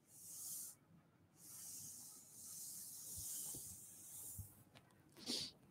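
A series of faint, hissing swishes: a palm wiping across the interactive whiteboard's surface to erase a drawing.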